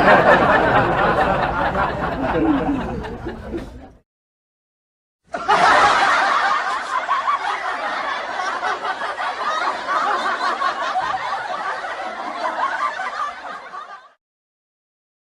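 Laughter sound effects: one laughing clip that stops about four seconds in, then, after a short silent gap, a second, longer laughing clip that fades out near the end.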